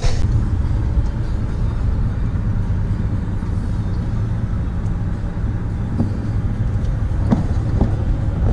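Car on the move, heard from inside the cabin: a steady low engine and road rumble, with a few faint clicks in the second half.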